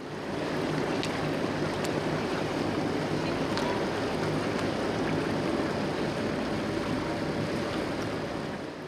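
A boat's engine running steadily with a low hum, under a haze of water and wind noise, easing off slightly near the end.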